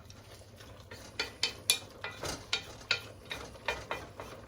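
A spoon stirring a simmering stew in a pot, knocking and scraping against the pot's side at several taps a second from about a second in.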